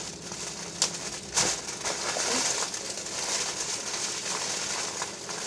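Clear plastic oven bag crinkling and rustling as it is gathered and twisted shut by hand, with a couple of sharper crackles about a second in.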